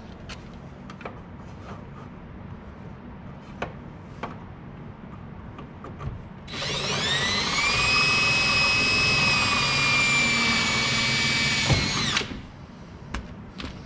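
Power drill with a 5/16-inch bit boring a hole in the UTV's plastic body panel: a few handling clicks, then about halfway in the drill spins up with a rising whine, runs for about six seconds with its pitch sagging slightly under load, and stops abruptly.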